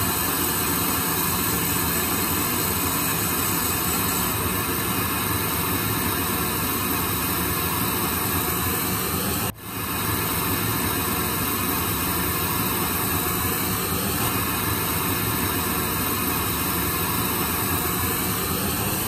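Rolls-Royce AE3007 turbofan engines of an Embraer Legacy 650 business jet running on the ground before departure: a steady loud rush with a high-pitched whine over it. The sound dips briefly about halfway through.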